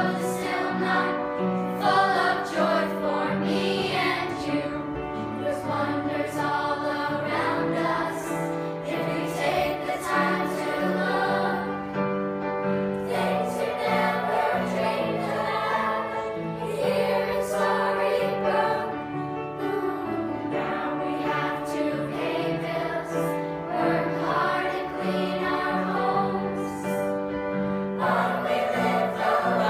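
A cast of children singing together as a chorus, with an instrumental accompaniment holding low notes that change every second or so underneath.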